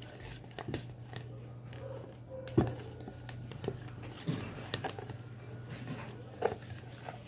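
Slime ingredients (glue, liquid soap, shampoo, lotion and shaving cream) being stirred together on a tabletop: scattered soft taps and sticky mixing sounds, with one sharper knock about two and a half seconds in, over a low steady hum.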